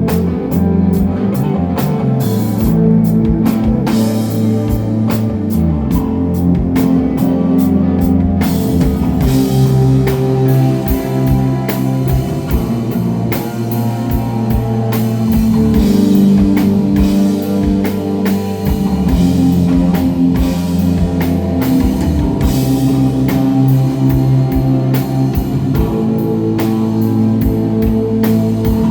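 A rock band plays live: electric guitar, bass and a drum kit. The cymbals fill in fuller about eight seconds in.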